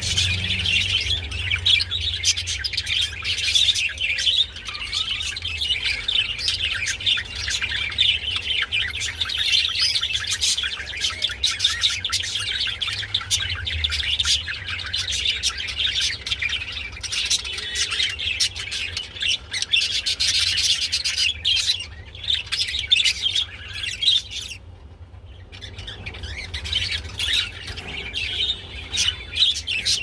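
Budgerigars chattering and chirping in a continuous busy warble, with a brief lull near the end, over a low steady hum.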